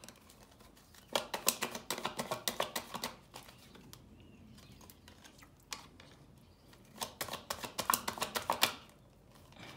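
A deck of oracle cards being shuffled by hand: two short bursts of rapid flicking and clicking, about a second in and again around seven seconds in.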